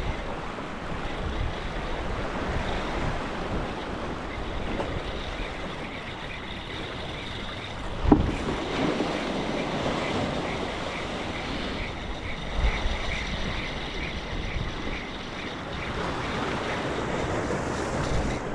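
Surf washing against the shore, with wind buffeting the microphone, and a single sharp knock about eight seconds in.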